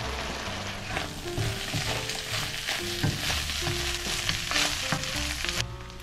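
Ground beef sizzling in a hot wok as a wooden spatula stirs and scrapes it, the cooking liquid boiling off. The sizzle cuts off sharply shortly before the end.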